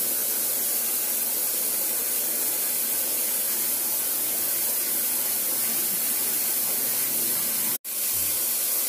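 Bathtub faucet running, a steady hiss of water pouring into the tub. The sound drops out for an instant near the end.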